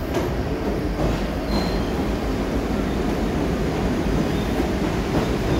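New York City subway train pulling into the station along the platform: the steady noise of the cars rolling past, with one brief high squeal about a second and a half in.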